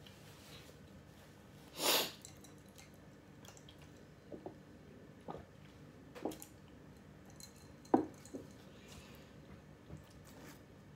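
A person blowing their nose into a tissue once, a short rush about two seconds in. After it come a few small clicks and knocks of eating at the table and sipping a drink through a straw, the sharpest click about eight seconds in.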